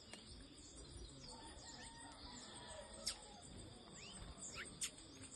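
Small birds chirping: a few short, sharp, falling high calls, the loudest about three seconds in and again near the end, over a faint steady insect trill.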